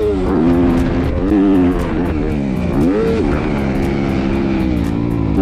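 Yamaha motocross bike's engine revving up and down as it is ridden on a dirt track, with a sharp rise and fall in revs about three seconds in.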